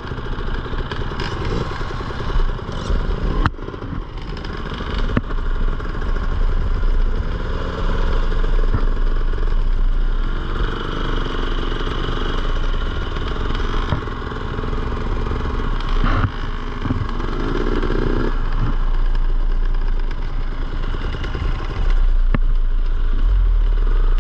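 Dirt bike engine running on a trail ride, its pitch rising and falling as the throttle opens and closes, with the clatter of the bike over rough ground and a few sharp knocks.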